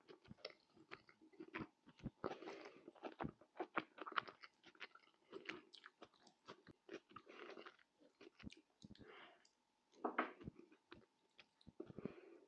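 Close-miked chewing and biting of food: irregular crunchy clicks and short wet mouth sounds, with a couple of brief pauses. A faint steady hum runs underneath.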